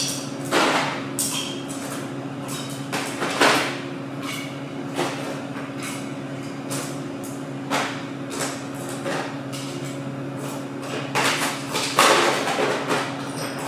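Bar glassware, bottles and metal tools being handled while a martini is mixed: scattered clinks, knocks and short scrapes, the busiest stretch near the end, over a steady low hum.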